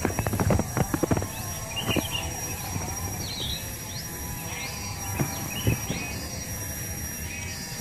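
Short bird chirps repeating every second or so over a steady, pulsing insect drone, with a quick run of sharp clicks and knocks in the first second and two more about five seconds in.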